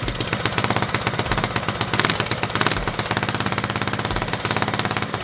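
Single-cylinder Briggs & Stratton flathead engine on a mini bike running on a short exhaust, a fast, even rattle of exhaust pulses, on its first test run driving the front wheel.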